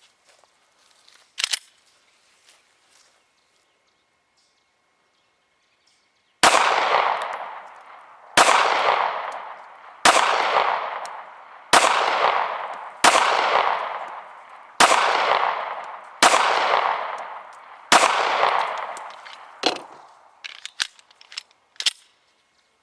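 Eight shots from a Smith & Wesson Shield 9mm pistol, fired one at a time about one and a half to two seconds apart, each with a long echoing tail. A single sharp click comes about a second and a half in, and a few lighter clicks follow the last shot.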